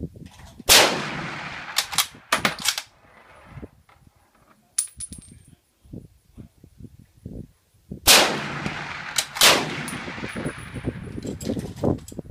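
Two shots from a Remington M1903A3 bolt-action .30-06 rifle, about seven seconds apart, each a loud crack that rings out in a long echoing tail. Short metallic clicks and clacks follow the first shot, and another sharp crack comes about a second after the second shot.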